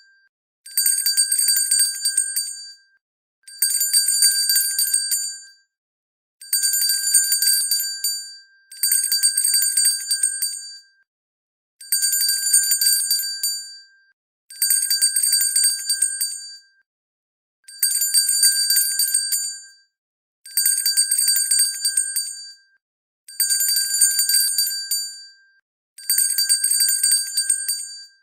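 Hand bell shaken in about ten bursts of rapid clapper strikes, each about two seconds long and fading out, with short silent pauses between, repeating roughly every three seconds. A high-pitched ring.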